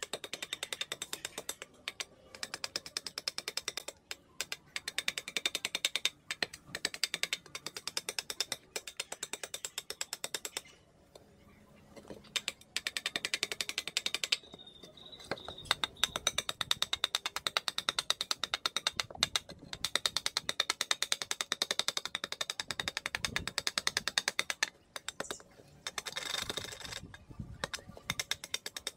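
Quick, rapid scraping and clicking of a steel blade cutting into wood as the inside of a wooden bowl blank is hollowed out by hand, several strokes a second, with a few brief pauses.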